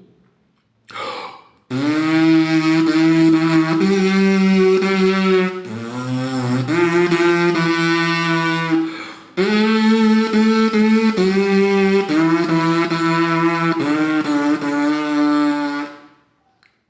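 Free lip buzz, the trombonist's 'abelhinha' without instrument or mouthpiece, playing a slow hymn melody as an embouchure warm-up exercise. The buzzy sustained notes come in three phrases with short pauses between them.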